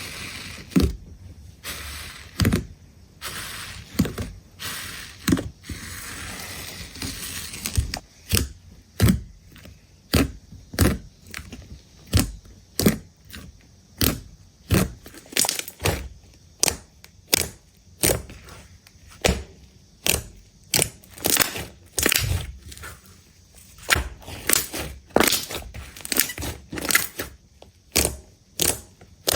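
Slime being handled: pressed, poked and squeezed, giving a string of sharp popping crackles about one or two a second, with a stretch of continuous crinkling in the first several seconds.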